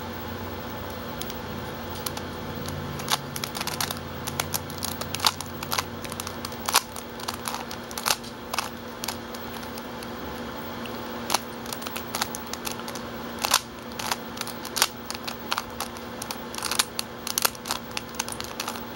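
A 3x3 Rubik's Cube, lubricated with vegetable oil, being turned by hand: irregular clicks and clacks as its layers are twisted, coming in quick runs with short pauses, over a steady faint hum.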